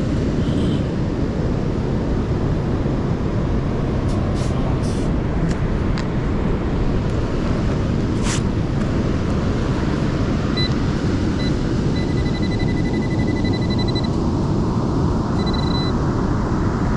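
Steady storm wind and surf noise on the beach. Through it, a few short clicks, then, from about ten seconds in, a metal detector's high target tone sounding in short beeps and pulsing stretches as it is swept over a buried target.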